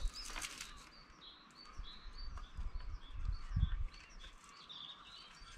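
Small birds chirping repeatedly in short, high calls, with a brief rustle near the start and low thumps about halfway through from a strap being threaded around the folded recumbent trike's frame.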